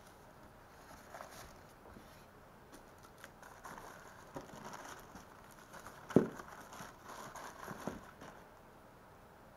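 Plastic packaging crinkling and rustling as hands unwrap and handle parts in a moulded packing tray, with one sharp knock about six seconds in.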